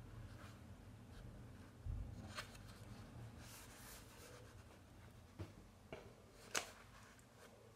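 Quiet paper handling: pages of a small colouring book being turned and the book shifted in the hands, a few soft rustles and light taps, the sharpest about two-thirds of the way through.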